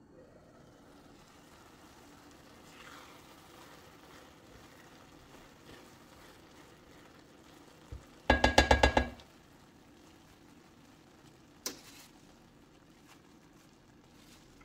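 Vermicelli and carrots being stirred in a frying pan with a silicone spatula over a faint sizzle, then about eight seconds in a quick run of about six knocks on the pan that make it ring, and a single sharp click a few seconds later.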